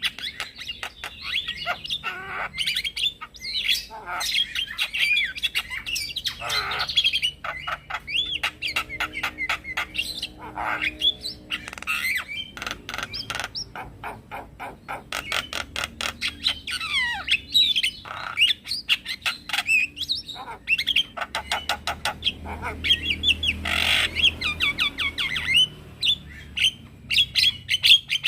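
Male Javan myna singing a fast, varied song of chirps, whistled glides and harsh squawks, thick with sharp clicks.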